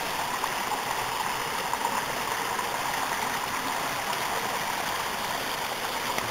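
A small creek running, a steady even rush of water.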